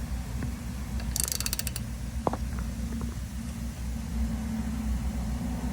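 Nut being cranked with an adjustable wrench on a makeshift bolt-and-washer puller, forcing a seized wheel hub out of the steering knuckle: metal creaking and clicking as it turns. A quick cluster of sharp clicks comes about a second in and a single knock a little after two seconds, over a steady low rumble.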